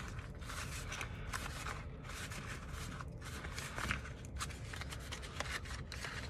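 Thick, crayon-coated painting paper crinkling and rustling as it is rolled up and squeezed between the hands to wrinkle it, with irregular small crackles.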